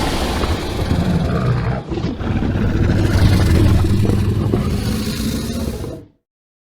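Tyrannosaurus rex roar sound effect: a deep roar with a short break about two seconds in, then one long roar that cuts off to silence about six seconds in.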